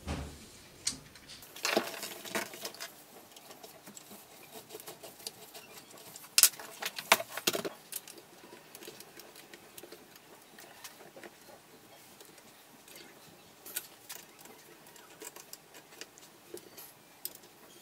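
Clicks, knocks and light clatter of metal and wooden airgun parts being handled and fitted together. There are louder clusters about two seconds in and again around six to seven seconds in, and lighter ticks after.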